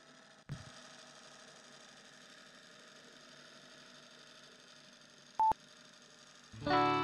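A single short high beep from a film-leader countdown, over a faint steady hiss, with a small click about half a second in. Music starts just before the end.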